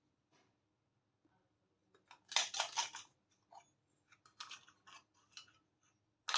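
Small plastic toy pieces and packaging being handled, making crisp clicks and rustles. There is a quick run of sharp clicks a little over two seconds in, then a few light, scattered ticks.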